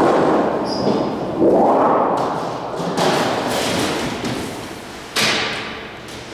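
A large 24-gauge sheet-metal panel being handled: a rumbling wobble as the thin sheet flexes, then two sharp thuds about three and five seconds in as it is laid and slid onto the folder's metal bed.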